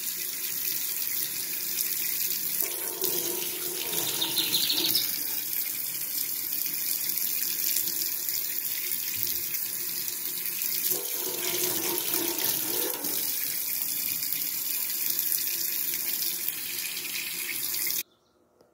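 Water running steadily from a tap into a stainless steel sink, a constant hiss that cuts off abruptly near the end.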